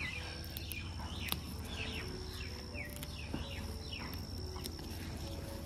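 Birds giving short falling chirps, one after another, over a steady high insect whine, with a couple of faint clicks as coriander is picked by hand.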